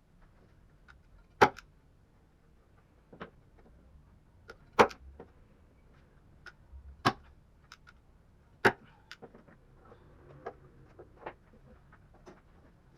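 Irregular sharp clicks and knocks from small hard objects being handled, four of them louder, with fainter taps between.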